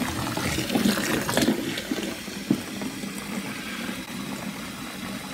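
Kitchen faucet running hot water into a plastic cooler of water, a steady pouring splash. It is louder and more uneven for the first second or so, then settles into a quieter, even stream, with a single knock about halfway.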